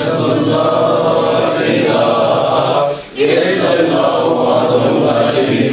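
A group of men chanting together in unison, with a short break for breath about three seconds in before the chant resumes.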